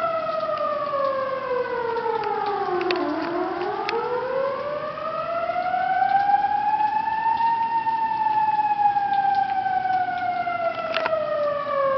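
Outdoor flood-warning siren wailing, signalling that the river is in danger of overflowing. Its pitch falls for about three seconds, rises slowly to a peak about halfway through, then starts to sink again.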